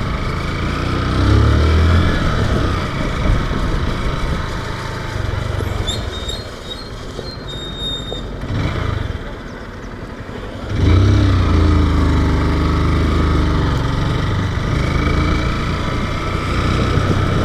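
Motorcycle engine running under way, easing off for a moment past the middle, then pulling away again about eleven seconds in with the pitch rising as it accelerates.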